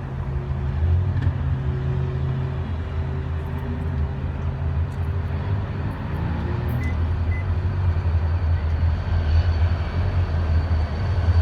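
Diesel locomotive running light, with no cars behind it. Its low engine rumble slowly grows louder as it approaches.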